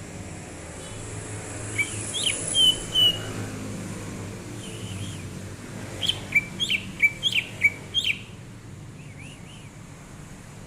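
Cucak ijo (green leafbird) singing in clear whistled notes. A short phrase comes about two seconds in, then a quicker run of about eight sharp notes from about six to eight seconds, and a few faint notes after it. A steady low rumble runs underneath.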